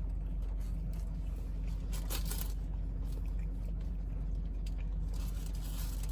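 Someone eating a bacon Gouda breakfast sandwich: soft crunching and chewing with faint paper rustles, over a steady low hum.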